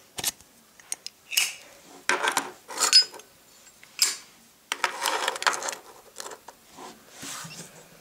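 Sharp metal clicks and clinks of a Zippo lighter's hinged lid being flicked open and snapped shut several times, with longer scraping sounds about two and five seconds in.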